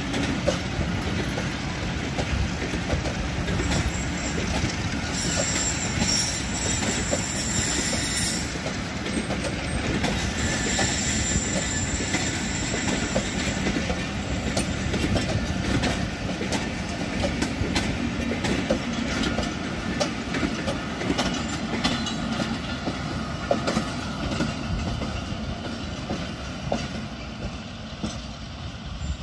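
Pakistan Railways passenger coaches rolling past close by: a steady rumble with the wheels clattering over the rail joints. A thin high wheel squeal comes and goes twice in the first half, and the sound eases slightly near the end as the train draws away.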